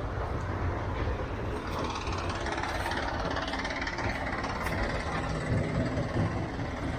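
Road traffic: a steady rumble of vehicle engines and tyre noise, swelling a little in the middle as a vehicle passes.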